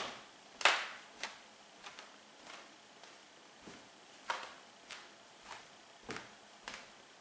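Hardwood floorboards crackling under stocking-footed walking: a short, sharp crack roughly every 0.6 s as each foot lifts off the boards. The loudest crack comes just under a second in, and some are much fainter than others.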